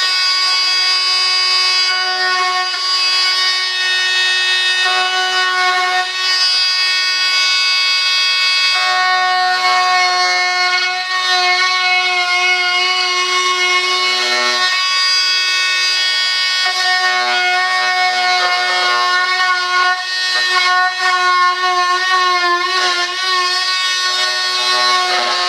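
High-speed rotary power tool whining steadily while cutting through a composite (carbon/fibreglass) airframe, with a gritty rasp of the cut under the whine. Its pitch wavers as the tool is pressed into the material, most of all near the end.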